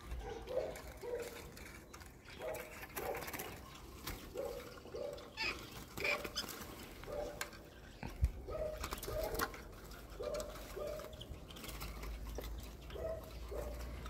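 A bird calling in short low notes, often two together, repeating every second or so. One sharp knock comes about eight seconds in.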